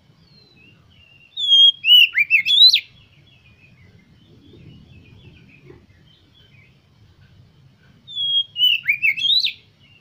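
Oriental magpie-robin singing: two loud whistled phrases about six seconds apart, each a quick run of rising and falling whistles lasting about a second and a half, with soft chirps in between.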